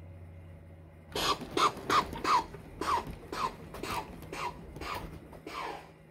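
Bachmann North Pole Special model steam locomotive giving about ten rhythmic chuffs from its sound unit, roughly two a second and spacing out slightly as the train slows to a stop.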